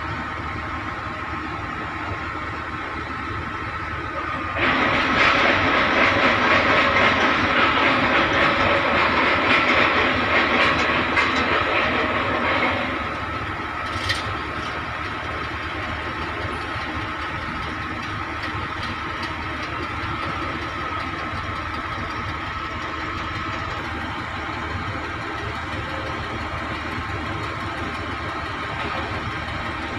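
Heavy construction machinery, crane and piling rig engines, running steadily. From about four seconds in to about thirteen a much louder hissing rush rises over the engine noise, then drops away, with a single sharp click shortly after.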